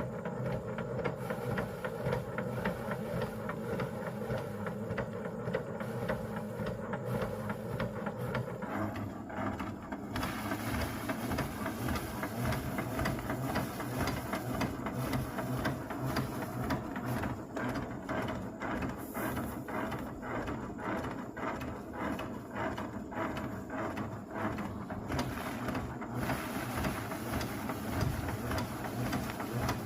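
A small motor-driven machine running steadily with a fast, even clatter; its note shifts about nine seconds in.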